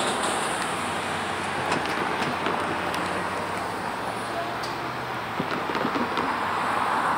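Intermodal freight train rolling past the grade crossing as its last cars go by: a steady rush of wheels on the rails with scattered clicks.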